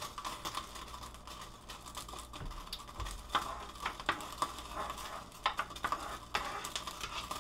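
Spatula moving olive oil around a nonstick frying pan, light scraping with scattered small clicks and taps against the pan.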